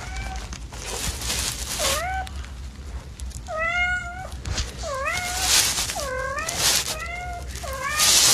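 Kittens meowing: about six short, high, rising-and-falling meows, the longest and loudest about halfway through. Brief rustling noise bursts come between the meows, the loudest near the end.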